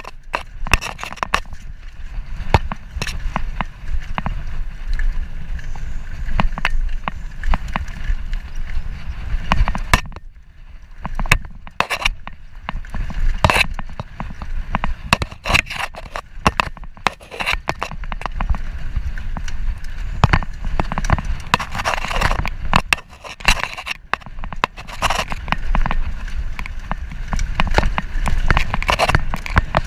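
Mountain bike ridden along a dirt singletrack trail: a steady low rumble of tyres and wind on the microphone, with frequent clicks and rattles from the bike over bumps. It eases off briefly about ten seconds in.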